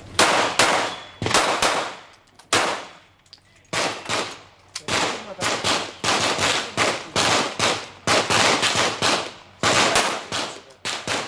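Semi-automatic pistols firing: a long run of single sharp shots, roughly two a second, each with a short echo, from more than one shooter on the firing line. There is a brief lull about three seconds in.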